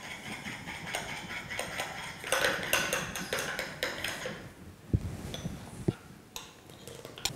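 Spoon stirring batter into melted butter in a small glass bowl, clicking and scraping against the glass, then two dull knocks about five and six seconds in.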